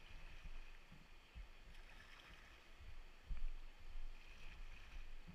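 Rushing white water of a small river rapid around a kayak's bow as the boat runs it, with irregular low thumps, the loudest about three seconds in.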